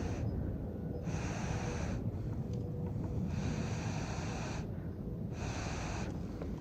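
Someone blowing hard into a Swedish torch log to coax a fire that won't catch, in four long breaths a couple of seconds apart. A low steady rumble runs underneath.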